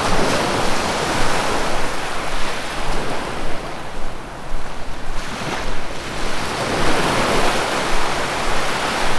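Sea waves breaking and washing on a shore, a continuous surf noise that swells with each wave, about three swells, with some wind.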